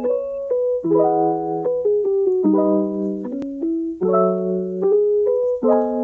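Background music: a soft piano tune, with chords changing about every second and a half.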